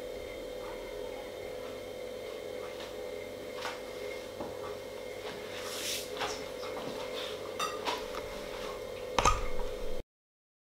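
Quiet kitchen room tone with a steady hum, broken by a few faint clicks and knocks of someone moving about and handling things, and a louder thump near the end; then the sound cuts off completely.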